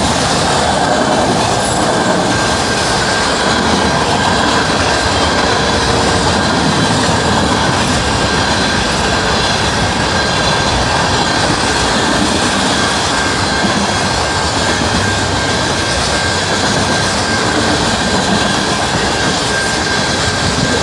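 Freight train cars rolling past at a grade crossing: a loud, steady rumble of steel wheels on the rails, with a steady high-pitched tone running through it.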